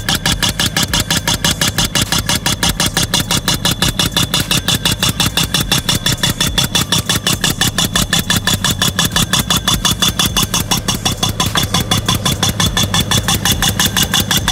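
A 2-inch pneumatic piercing tool (boring 'missile') hammering rapidly and evenly as it drives through the soil. An engine runs steadily underneath.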